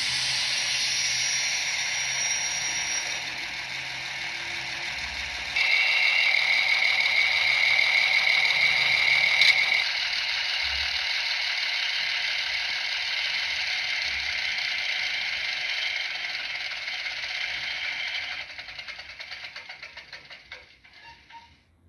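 HO-scale model of a Fiat ALn 556 diesel railcar with a DCC sound decoder running on the layout track, giving a steady mechanical rattle. A steady high tone joins for a few seconds from about a quarter of the way in. Near the end the sound fades and stutters out as the railcars come to a stop.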